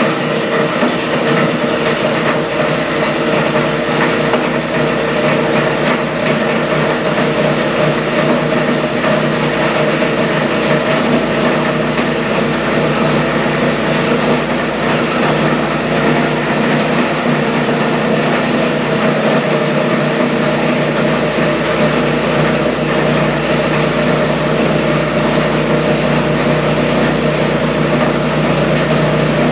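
SEM Model 2-SSD solid-state disintegrator running with its shredder and filtration system together, a loud, steady mechanical hum, as cell phones fed into the cutting chamber are ground into small particles.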